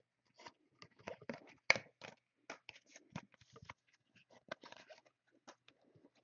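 Trading cards being handled and flipped through: faint irregular rustles, slides and light clicks of card stock, with the loudest click about a second and a half in.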